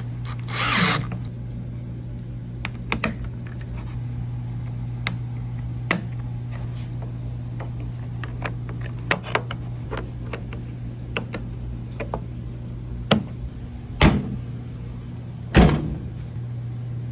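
Scattered clicks and knocks of the FJ Cruiser's rear door trim panel being pressed back into place, with three louder thumps near the end. A steady low hum runs underneath.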